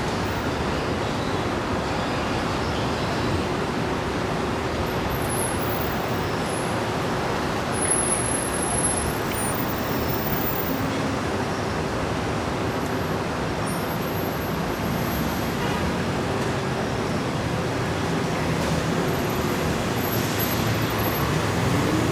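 Heavy city street traffic of cars and buses: a steady, dense wash of engine and tyre noise. Short faint high-pitched squeaks come and go, with a brief louder moment about eight seconds in.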